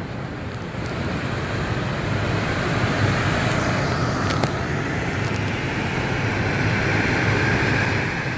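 Chevrolet Cruze accelerating on the rollers of a dynamic vehicle test booth, a whine rising steadily in pitch over a low rumble as the road speed climbs past 60 mph.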